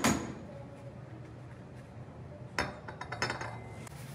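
Metal gas-hob burner caps and rings clinking against the stovetop as they are lifted off, with one loud clink at the start and a quick run of clicks and clinks about two and a half seconds in.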